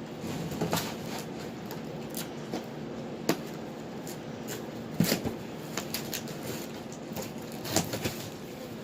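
A person pulling on a tight shirt: fabric rustling and handling noise, with scattered short knocks and clicks, the clearest about five seconds in and near the end.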